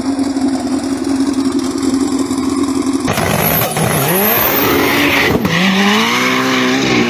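Turbocharged Fiat 147 drag car's engine running at a steady, choppy idle, then, about three seconds in, revving: the pitch rises and falls, then climbs again as the car pulls away.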